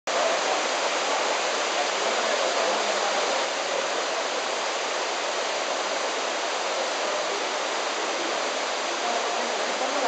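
Waterfall pouring over rock ledges into a pool: a steady, even noise of falling water.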